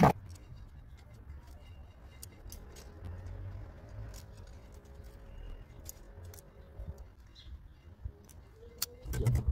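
Small, sharp metal clicks and taps as a steel mortise door lock is handled and its parts fitted together by hand, over a low background rumble. A louder bump comes near the end.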